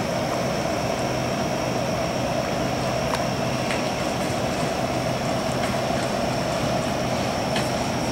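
Steady mechanical drone: a constant hum with a faint high whine over it and a few faint ticks.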